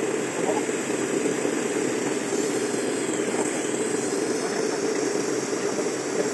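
JPT 100 W MOPA fiber laser engraving machine running steadily while it deep-engraves and cuts out a metal pendant. It makes a constant hum with a thin high hiss, with no breaks or changes.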